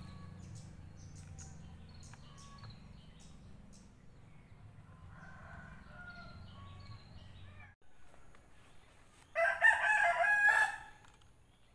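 A rooster crowing once, loud, for about a second and a half near the end, after fainter bird calls over a low steady rumble.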